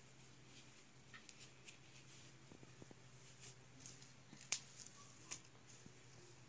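Faint rustling of a synthetic cycling jersey as hands handle and fold it, with a couple of light ticks a little after the midpoint.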